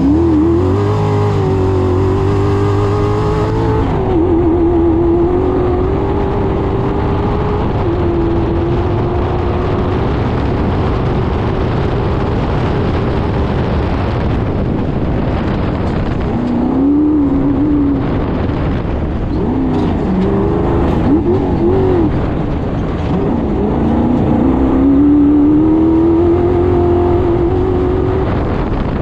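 Off-road race car's engine heard from on board, pulling hard from a standing start on a dirt track. Its pitch climbs and holds, dips and swoops several times in the second half, then climbs again near the end.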